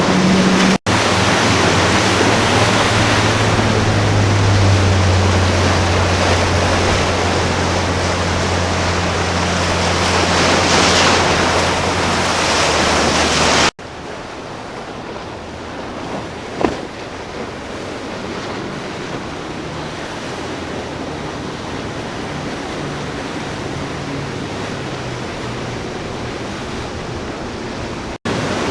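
Motorboat engines running with a steady low drone over the rush of waves and wind; after a sudden cut about halfway through, only the quieter wash of surf and wind remains, with one brief knock.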